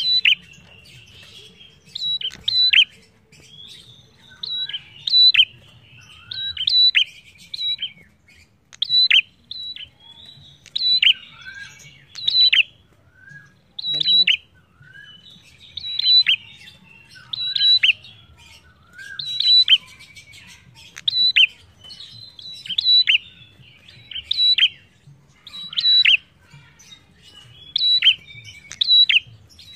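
Caged prenjak singing: loud, sharp, high chirping phrases, each a quick run of notes that drop steeply in pitch, repeated every second or two.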